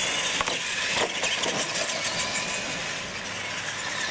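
Battery-powered R/C monster trucks racing flat out on asphalt: electric motors whining over a steady hiss of drivetrain and tyre noise, with a couple of sharp knocks about half a second and a second in.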